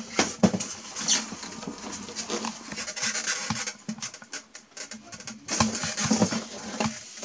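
Transparent plastic lid of an egg incubator being lifted off and handled: irregular scraping, rubbing and light knocks of hard plastic.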